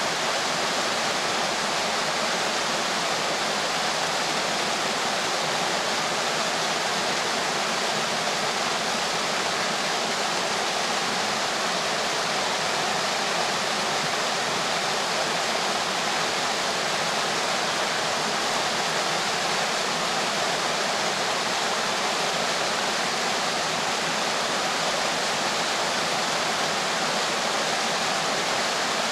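Mountain stream tumbling over rocks in small waterfalls: a steady, even rush of falling and splashing water.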